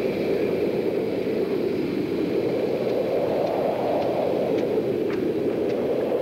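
Train running past, a steady low rumble with a few faint high ticks in the second half.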